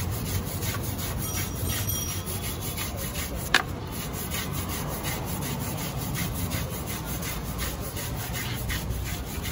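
Hand brush scrubbing a soapy motorcycle tyre in quick, repeated strokes, with a single sharp click about three and a half seconds in.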